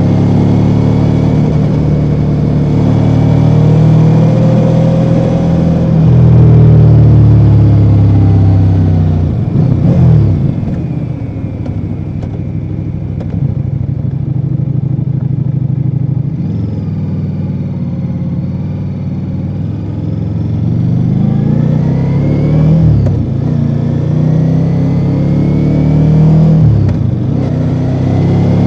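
Ducati Multistrada V4 Rally's V4 engine on its stock exhaust, pulling hard under load and then backing off about a third of the way in. It runs quieter for a while, then accelerates again near the end with rising revs broken by quick gear changes.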